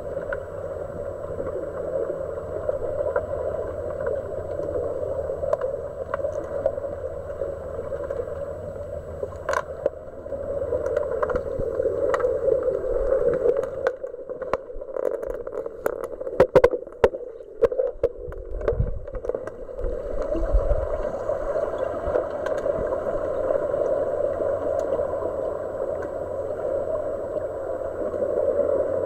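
Underwater sound of a swimming pool heard through a submerged camera: a steady muffled rushing of water, with a run of sharp clicks and knocks about halfway through.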